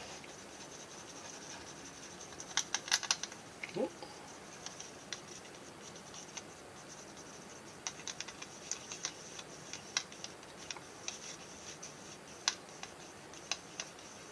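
Toothpick stirring an ink-and-alcohol mix in a small plastic cup: light, irregular clicks and scratches of wood against plastic, with a quick cluster of sharper clicks about three seconds in.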